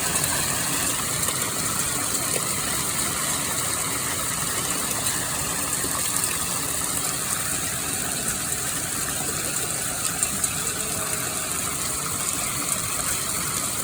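Hail falling steadily: a dense, even patter of many small hailstone impacts.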